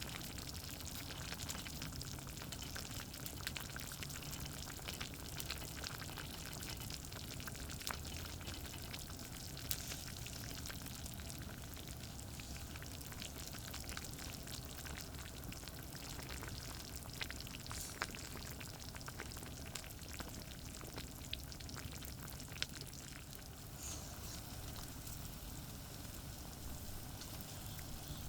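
Charcoal campfire crackling, with food sizzling over it and scattered sharp pops, over a steady low rumble of distant highway traffic.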